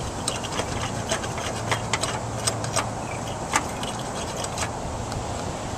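Irregular light clicks and scrapes of a hand tool working on a car's corroded battery ground-cable connection to clean it off.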